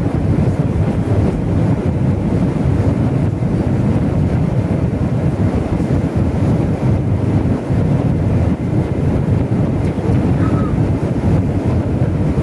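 Steady cabin roar inside an Airbus A320-family airliner descending on approach: engine and rushing-air noise, deep and unbroken.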